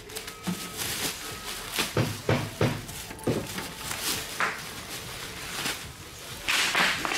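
Plastic bag, foam sheets and bubble wrap rustling and crinkling as they are pulled off and handled, in a series of short sharp crackles, with a longer, louder rustle near the end as the unit is lifted out of the wrapping.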